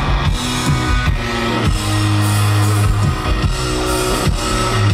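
Live rock band playing: electric guitar holding long, low chords over drum-kit hits.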